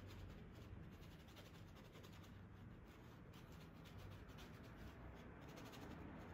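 Faint scratching of a paintbrush drawn across canvas, laying on thin oil paint, at near-silent level.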